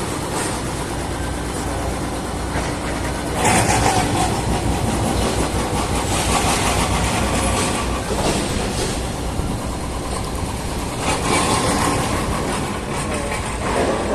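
An engine running steadily, growing louder and noisier for a few seconds from about three and a half seconds in, and again briefly near eleven seconds.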